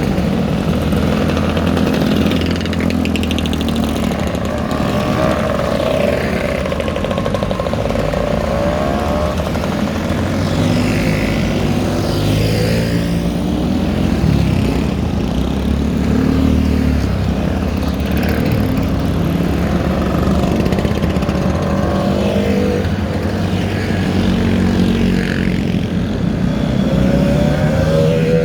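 Several motorcycle engines running together as a group of bikes rides past, their pitches rising and falling as the engines rev and pass.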